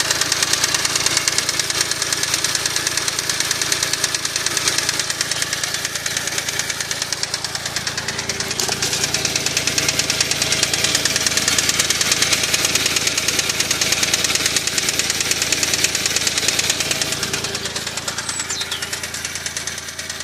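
Smart Roadster's small turbocharged three-cylinder engine running with a rapid, regular knock; the owner has been told it might be worn big end bearings.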